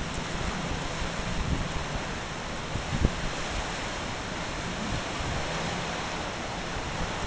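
Tropical-storm wind blowing hard and steadily, a constant rush with low buffeting of wind on the microphone and a brief knock about three seconds in.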